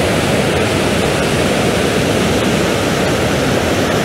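Small waterfall: white water tumbling over rocks, a loud, steady rush of falling water.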